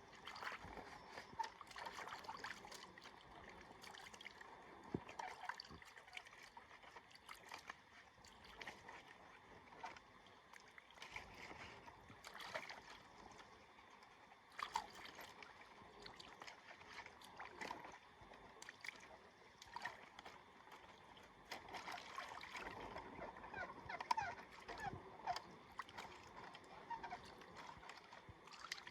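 Faint water splashing and trickling, with many small, irregular splashes.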